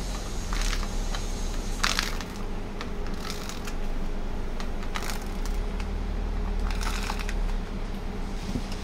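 Plastic scraper sweeping powder across the perforated capsule plate of a UHF 300 manual capsule filling machine: a series of short, irregular scraping and rustling strokes over a steady low hum.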